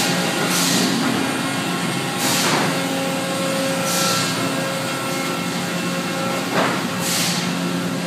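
Sawmill machinery running with a steady, even hum. Several short hisses of air are heard, one every two seconds or so, like pneumatic valves venting.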